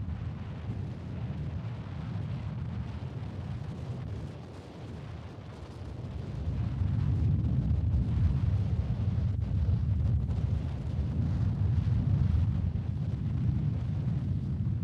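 Wind buffeting the microphone, a low rumbling that gusts louder about six seconds in.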